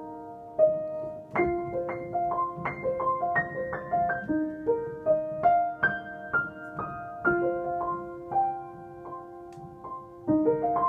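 Upright piano played by hand: a gentle flowing melody of single notes over held low notes, each note ringing on into the next.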